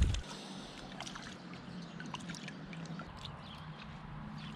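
Steady rush of a river in muddy flood, with scattered small clicks and light splashes. A loud low rumble cuts off abruptly right at the start.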